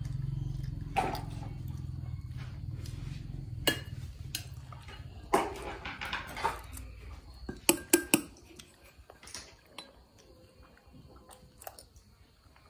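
Spoon and bowl clinking during a meal: scattered sharp clinks and knocks, with a quick cluster about eight seconds in, over a low hum that fades away during the first half.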